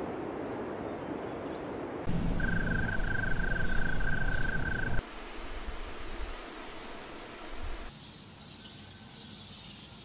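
Cricket chirping: an even run of short, high chirps, about four or five a second, lasting about three seconds from around the middle. Before it there is a continuous high trill over a noisy background, and after it a quieter high hiss.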